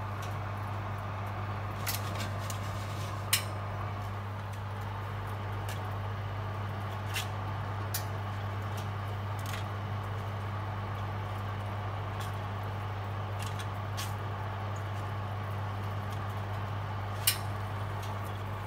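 Steady hum of a fan oven running, with sharp clicks of metal tongs against a foil tray and the oven rack; the loudest clicks come a little over three seconds in and near the end.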